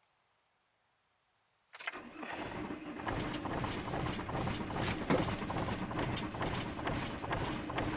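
VW T4 Transporter's diesel engine being cranked on the starter motor in the cold, turning over without catching, because its glow plugs are not working. The cranking begins suddenly about two seconds in.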